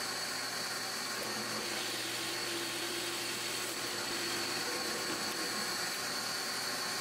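Drill press running steadily with a constant high whine, a 1-inch Forstner bit boring into a cherry board.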